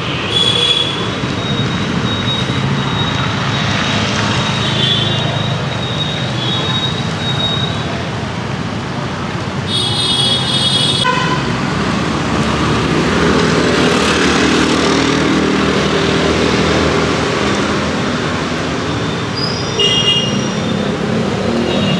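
Busy city road traffic running steadily, with vehicle horns honking several times; the loudest honk comes about ten seconds in and lasts about a second.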